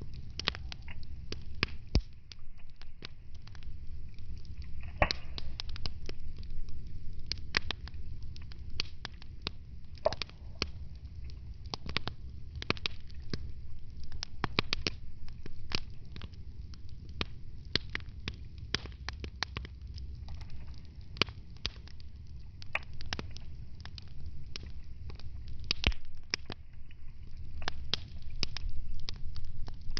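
Wood fire in a fireplace crackling, with irregular sharp pops and snaps over a low rumble.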